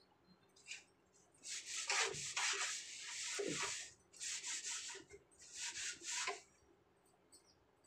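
Scrubbing strokes as a kitchen shelf is rubbed clean by hand, with a long stretch of scrubbing followed by two shorter strokes, stopping a little after the middle.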